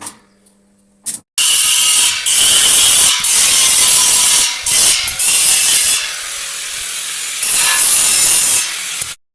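Angle grinder grinding or cutting steel: a loud, harsh rasping with a faint motor whine. It starts about a second in and runs in long stretches with short dips, stopping just before the end.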